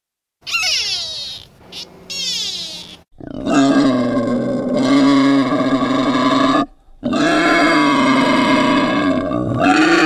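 Wild boar calling: two long, loud, steady grunting calls of about three seconds each, starting around three and a half seconds in. They are preceded by a few shorter calls that fall in pitch.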